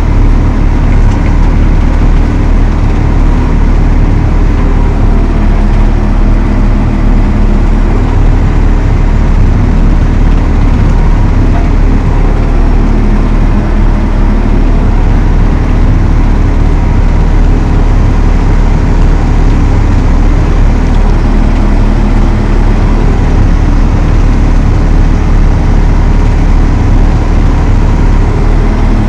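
Valtra T214 tractor's six-cylinder diesel engine running steadily, a constant loud drone with no change in speed.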